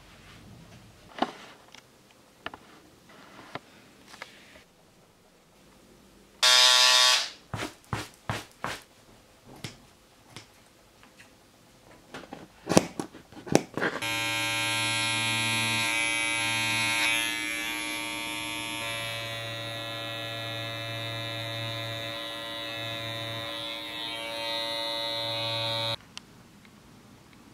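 Electric carpet carving clipper running steadily for about twelve seconds as it trims and sculpts the tufted rug pile, then cutting off suddenly. Before it come a brief loud buzz and scattered sharp clicks and knocks of handling.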